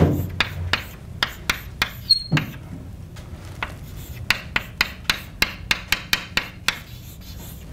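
Chalk writing on a blackboard: an uneven run of sharp taps and short scratches as each symbol is written, coming faster in the second half and stopping about a second before the end.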